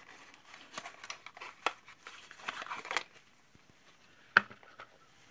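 A small cardboard cosmetics box being opened and a face-mask tube slid out of it: scattered rustling and light clicks for about three seconds, then one sharp tap a little over four seconds in.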